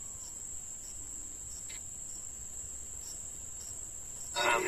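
Crickets chirring in one continuous high-pitched trill. A short burst of voice comes near the end.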